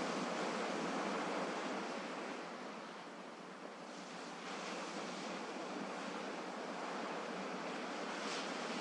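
Gentle sea waves washing in, a steady surf hiss that ebbs a little around the middle and swells again.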